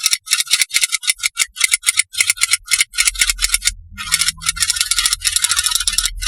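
Rapid, irregular rattling clicks, several a second, with a faint low hum joining about three seconds in.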